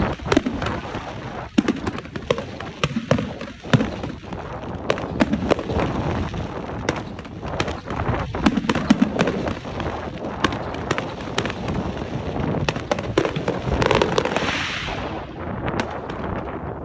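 Fireworks going off: a rapid, irregular run of sharp bangs and crackles from bursting shells. About fourteen seconds in, a hissing crackle swells up and then fades.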